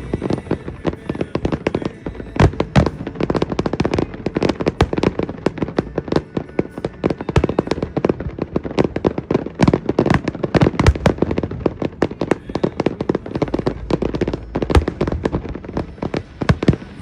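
Fireworks show: a dense, unbroken barrage of bangs and crackles, many per second, with a few louder bangs standing out.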